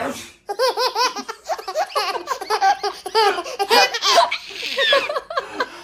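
A single sneeze right at the start, then a young child's high-pitched belly laughter in quick repeated bursts, the child cracking up at the sneeze.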